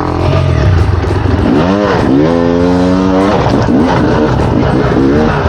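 Off-road enduro motorcycle engine revving hard: the pitch climbs sharply about a second and a half in, holds high for about a second, then drops into a series of short throttle blips as the bike picks its way over rocks.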